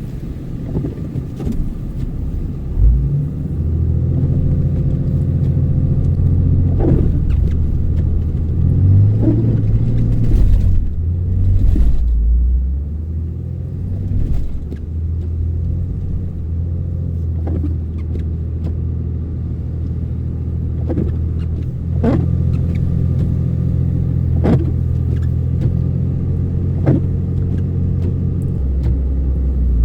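Truck engine working under load as the truck pushes through deep, heavy wet snow, a steady low drone whose pitch rises and falls for a few seconds near the middle as the revs change. Several sharp knocks break in along the way.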